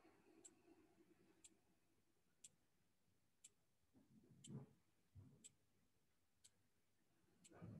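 Near silence with a clock ticking faintly once a second, evenly. A couple of soft, low sounds come about halfway through and again near the end.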